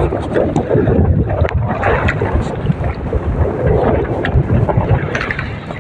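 Strong typhoon wind buffeting the microphone, with choppy waves splashing around a small outrigger fishing boat.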